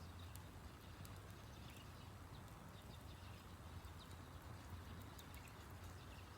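Faint wood campfire crackling: small irregular pops and snaps over a low steady hum.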